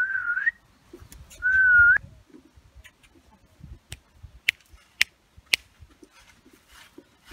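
A person whistling two short notes, each wavering and then rising in pitch at the end, the second louder. Then three sharp clicks about half a second apart, a little past the middle.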